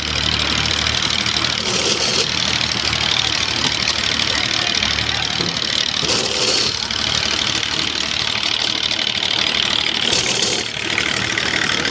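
Engine running steadily with a fast, even beat, driving a clay-brick extruding machine. Three brief hissing scrapes, about four seconds apart, sound over it.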